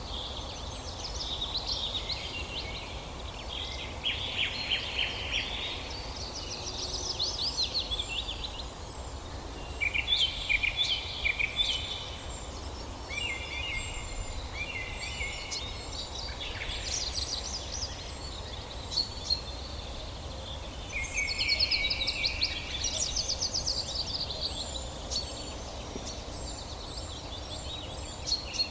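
Wild birds singing: a string of short phrases of rapid, high chirps and trills, a few seconds apart, over a steady low background noise.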